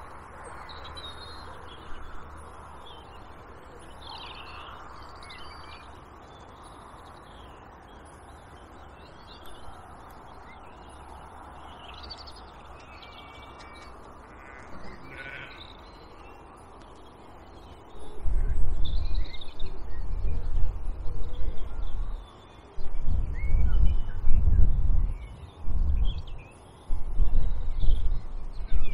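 Birds calling, with short varied calls and chirps throughout. From about two-thirds of the way in, repeated loud gusts of wind rumble on the microphone.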